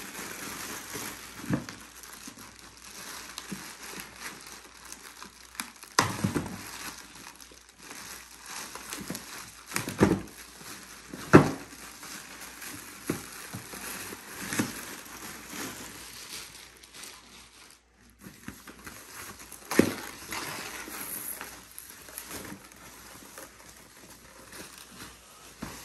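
Plastic packaging crinkling and rustling as a bidet toilet seat is unwrapped and lifted out of its cardboard box, with several sharp knocks from the box and seat being handled.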